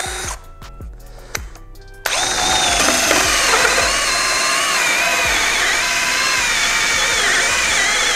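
Background music, then about two seconds in a Ryobi RAD18C cordless angle drill starts boring a 64 mm hole saw into a wooden beam. It runs steadily under heavy load, the motor's whine wavering in pitch over the rasp of the saw teeth in the wood.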